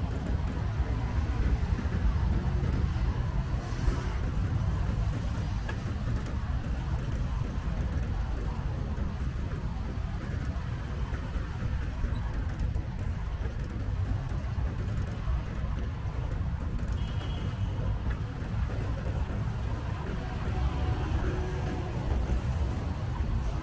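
Steady low rumble of wind on the microphone during a bicycle ride, with road traffic noise behind it.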